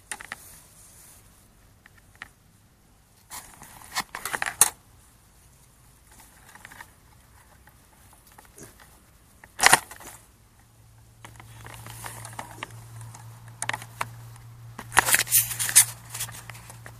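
Rustling, crackling and plastic clicks as a downed Hubsan H109S drone and its tangled parachute lines are handled in grass, heard close on the drone's own camera. There is one sharp knock about ten seconds in and a loud burst of crackling near the end. A low steady hum starts shortly after the knock.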